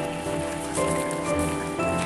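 Background music of held notes that change every half second or so.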